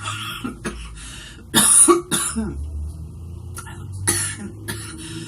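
A young woman coughing repeatedly in short, rough bursts, the hardest pair a little past a second and a half in.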